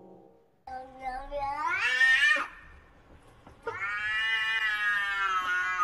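Domestic cat yowling twice: a call that rises steeply in pitch and breaks off after nearly two seconds, then, after a short pause, a long drawn-out meow held at a steady pitch.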